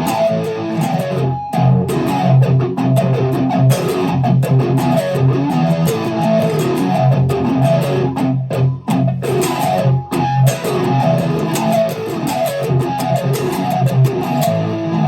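Electric guitar played through distortion and a Boss PH-3 phase shifter, playing a rhythmic intro riff of low power-chord shapes and picked notes in E standard tuning. The playing stops abruptly near the end.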